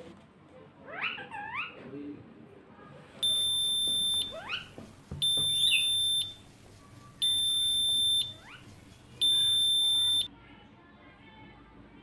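Four loud, steady electronic beeps, each about a second long, one every two seconds, like an alarm tone. Between and under them, a parrot gives short rising chirps.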